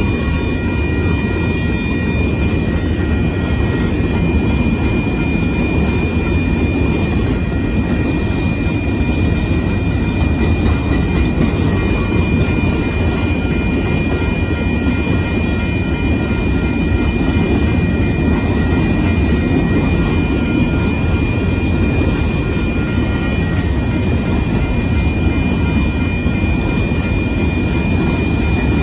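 Union Pacific freight train of open-top limestone hopper cars rolling past at a grade crossing: a steady, loud rumble of wheels on rail, with a steady high ringing tone over it.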